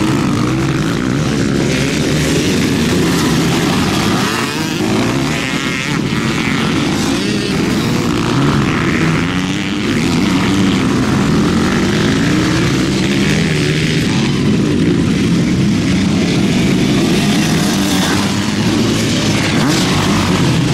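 Motocross bikes racing on a dirt track, their engines revving up and down without a break as riders accelerate, shift and pass.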